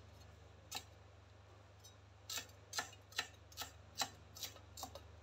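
Kitchen knife chopping spring onions and cilantro on a wooden cutting board: a single stroke about a second in, then a run of about eight strokes, two or three a second, from about two seconds in.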